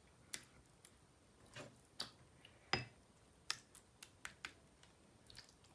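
Faint, irregular clicks and taps of a black plastic spoon against a ceramic baking dish while beef mince is spread into a layer; a dozen or so, the loudest a little before the middle.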